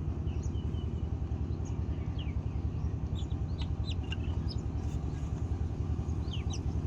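Birds chirping in short, high, quick calls scattered throughout, over a steady low rumble.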